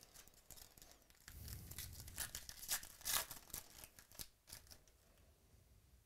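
Plastic trading-card pack wrapper torn open by hand and crinkling in a series of crisp crackles, loudest about three seconds in.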